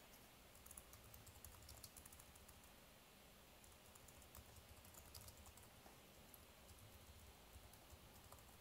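Faint typing on a computer keyboard: short runs of key clicks with pauses between them.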